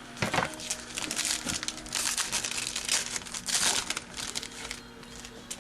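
Crinkling of a trading-card pack wrapper as it is pulled open and handled, a dense run of crackles that dies down near the end.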